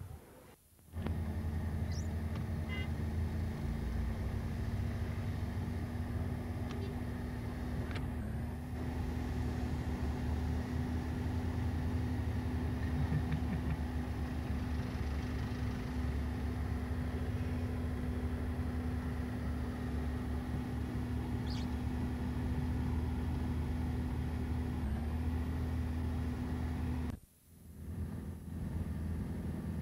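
A vehicle engine running steadily, a low, even drone. It cuts out briefly twice, just after the start and near the end.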